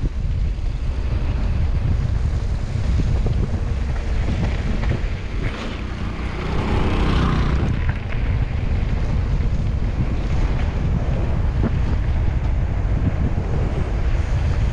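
Wind buffeting the microphone of a camera riding along on a moving bicycle, a steady heavy rumble. About six seconds in, a brief louder sound with a pitch to it rises and fades.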